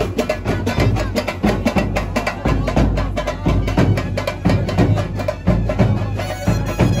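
Street band music: drums beating a fast, dense rhythm, with a saxophone melody coming in near the end.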